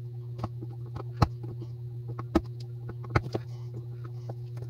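Irregular small, sharp metal clicks and ticks of a screwdriver working an E-clip and small parts inside a Zebco One Classic spincast reel, the loudest about a second, two and a half, and three seconds in, over a steady low hum.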